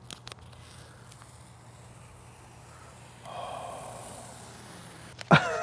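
Masking tape being peeled off a freshly painted sword blade: a soft, quiet rasp that starts about three seconds in. A short breathy voice sound comes near the end.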